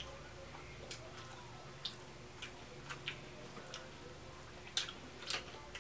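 Faint eating sounds of someone chewing seafood: scattered short, wet clicks and smacks, two of them louder near the end.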